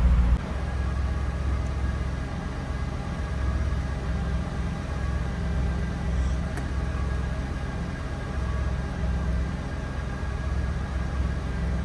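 Lancia Thema 8.32's Ferrari-derived 2.9-litre V8 engine: a rev cuts off just after the start, and the engine then runs on steadily at low revs with an even, low note.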